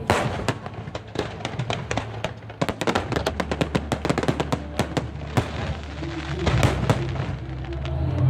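Fireworks exploding in rapid succession, a dense volley of sharp bangs and crackles about two and a half to five seconds in, with music playing under them that swells near the end.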